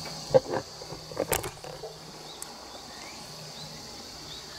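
Tsukutsuku-boshi cicadas (Meimuna opalifera) calling: a steady high drone with short rising chirps repeating over it. Two brief louder noises come near the start, about a second apart.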